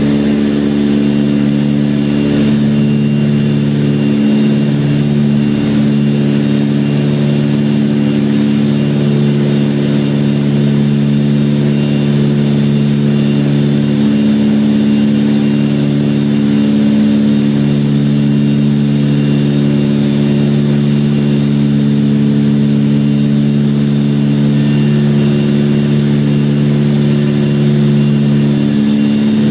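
Cabin noise of a Britten-Norman BN-2 Islander in flight: its twin engines and propellers drone steadily and loudly, and the lowest part of the drone fades out and returns a couple of times.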